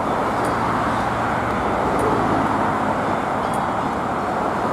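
Steady city street traffic noise from passing cars and an approaching tram, with a faint high tick repeating about every second and a half.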